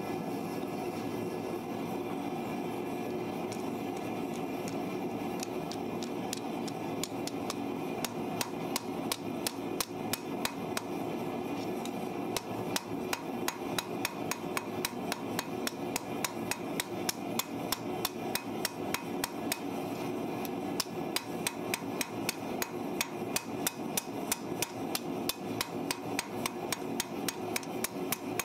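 Hand hammer striking a red-hot farrier's rasp on an anvil in a quick, even rhythm of about three to four blows a second, drawing the tip out to a point. The blows start faint and grow louder from a little under halfway in, over a steady roar.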